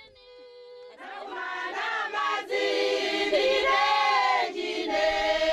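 A group of people singing together in chorus, several voices holding and bending long notes, coming in about a second in after a faint held tone.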